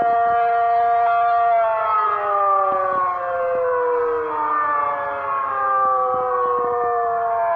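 Penetrator-50 tornado siren sounding a steady two-tone chord, then from about a second and a half in its pitch slowly falls as it winds down.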